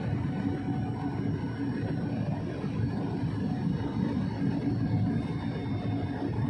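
Airliner cabin noise on the approach to landing: the steady low drone of the engines and the airflow, with faint thin whines above it.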